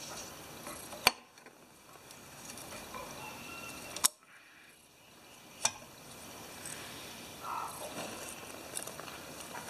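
Three sharp metallic clicks, about a second, four seconds and five and a half seconds in, from pliers working a hose clamp onto the fuel line at the carburetor, with quiet handling noise between them.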